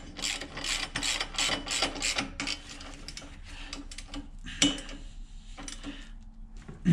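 Socket ratchet clicking as a bolt is run in, about three or four clicks a second at first, then only a few single clicks as it is snugged tight.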